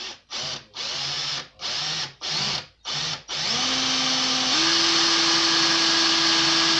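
Cordless drill drilling a hole in a convertible-roof latch: six short pulses on the trigger, then the drill runs steadily from about three seconds in, its motor pitch stepping up once a second or so later as it speeds up.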